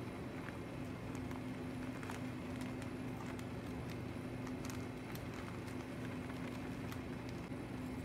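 A steady low hum, with faint scattered crackles and rustles as potting soil is poured from a plastic bag into a flowerpot.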